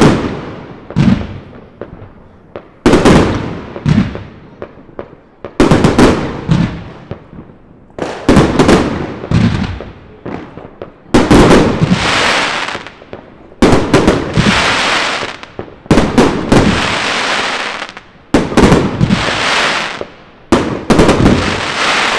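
Fireworks going off: a loud bang about every two and a half seconds, each fading away over a second or two. In the second half, stretches of dense crackling hiss fill the gaps between the bangs.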